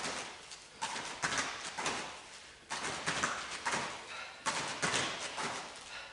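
Bare feet stepping and landing on foam floor mats during a shift-over, knee-up, shift-back footwork drill: a sharp thud about every two seconds, with lighter taps between.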